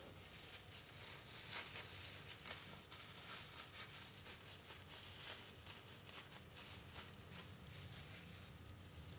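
Faint crinkling and rustling as a softened banana leaf is folded into a cone by plastic-gloved hands, with scattered small clicks and crackles.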